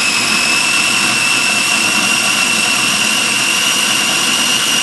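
Electric food processor running steadily, its motor and blade giving a constant high-pitched whine as it grinds a wet paste of tomatoes, chilies and aromatics.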